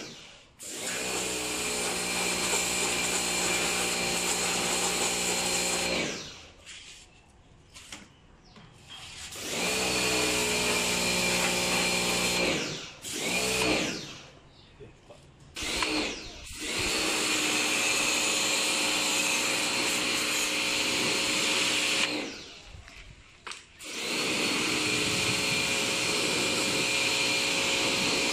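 Pressure washer running while its water jet hisses over a spray drone, the motor and pump giving a steady whine. It stops and restarts three times, for a few seconds each, as the trigger is let go and squeezed again.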